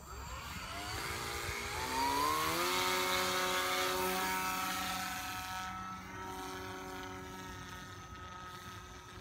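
The small electric motor and propeller of a foamboard flying-wing RC plane spinning up, a whine rising in pitch for about two seconds, then holding at full throttle. It grows fainter in the last few seconds as the hand-launched plane flies away.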